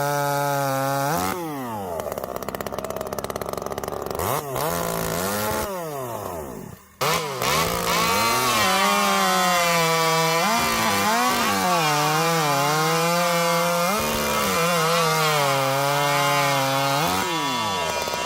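Poulan Wild Thing two-stroke chainsaw running at high revs, its pitch sagging and recovering again and again as it bogs in the cut and frees up. There is a brief break in the sound about seven seconds in.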